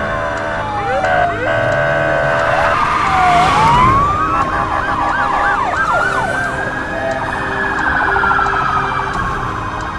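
Several police sirens sounding at once, their pitches rising and falling and overlapping, with a quick run of yelps about five seconds in. A steady multi-note tone sounds under them for the first few seconds.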